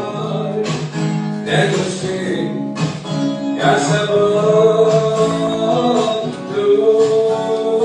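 Background song with acoustic guitar and a man singing.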